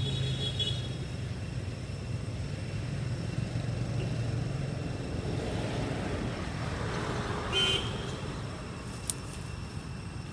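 Road traffic: a vehicle engine runs with a steady low hum, then a passing vehicle swells and fades, with a short high-pitched toot about seven and a half seconds in and a single sharp click near the end.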